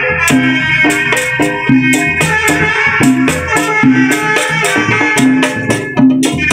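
Live Sundanese kuda renggong music: a percussion ensemble of drums and rattles playing a fast, steady beat over repeating low notes.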